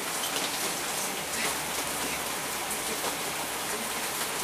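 Steady, even hiss of water.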